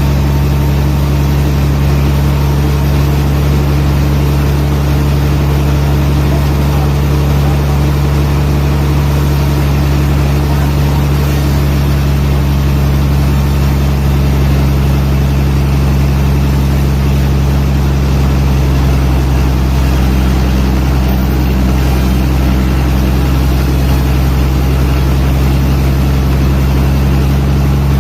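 A machine's engine running steadily, a loud, even low drone that holds one pitch throughout.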